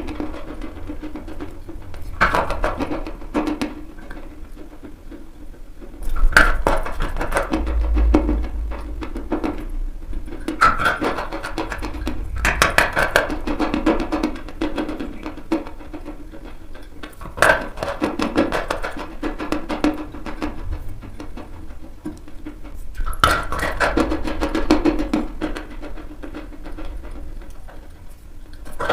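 Dry chalk being crunched and chewed: a sharp bite every few seconds, each followed by a stretch of crackly chewing, over background music.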